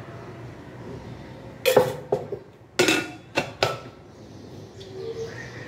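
Stainless steel milk can and its lid clanking: about five sharp metallic knocks with a brief ring, bunched between about one and a half and four seconds in.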